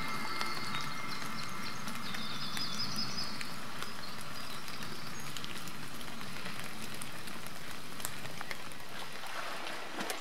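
Light rain pattering steadily on water and rock, a soft hiss dotted with many small drop ticks, with a few faint high chirps in the first three seconds.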